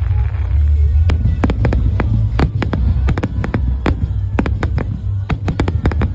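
Fireworks going off: a dense run of sharp crackles and pops, packed closest from about a second in, over a deep, steady rumble.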